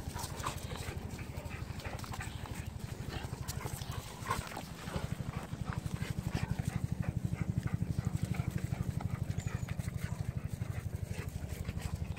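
Dogs barking now and then over a steady, fast, low pulsing throb that gets louder about five seconds in.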